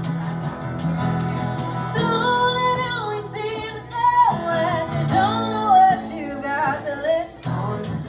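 Live band playing a pop-rock song, with a lead vocal singing over steady bass and chords and jingling percussion keeping the beat.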